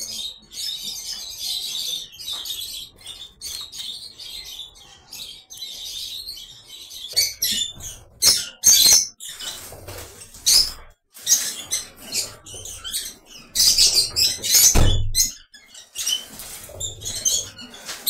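A colony of African lovebirds chattering with many short, shrill chirps, growing louder and burstier in the second half. A single dull thump comes about fifteen seconds in.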